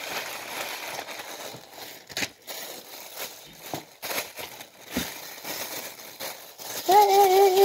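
Clear plastic wrapping crinkling and crackling as hands tear and crumple it off a box, with many short crackles. Near the end a steady held tone sounds for about a second and a half.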